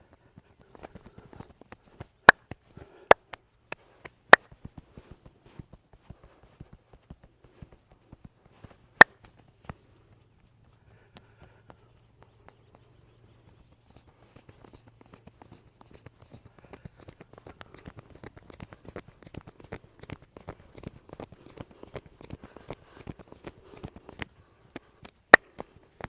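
Hands slapping and patting on a person's head and back in a fast, vigorous massage: scattered sharp slaps, a handful much louder than the rest, then a dense run of quick pats in the second half.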